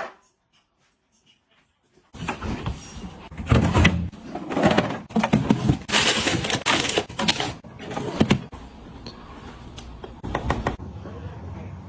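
Close-up handling sounds: about two seconds of silence, then items being picked up, shuffled and set down, with knocks, clicks and rustling scrapes.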